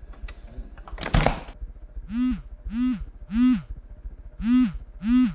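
A mobile phone vibrating for an incoming call: short buzzes, each swelling and dying away, three in a row, a brief pause, then two more. About a second in, before the buzzing, there is a loud short burst of noise.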